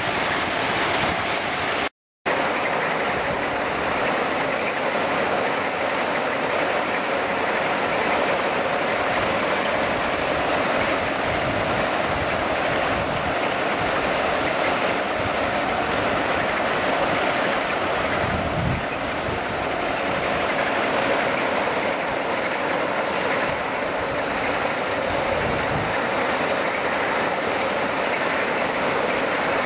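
Plasser & Theurer track-maintenance train at work: conveyor belts carrying and tipping crushed ballast stone, a steady rush of stone and machinery with engine noise beneath. A short gap of silence about two seconds in.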